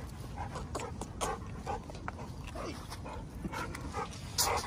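A dog making a string of short sounds, with the loudest burst near the end.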